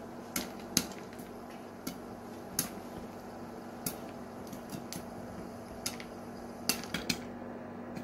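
Popcorn kernels popping in a covered stainless steel saucepan, sharp pops knocking against the glass lid. About a dozen pops come at uneven intervals over a steady hiss, sparse as the batch nears done.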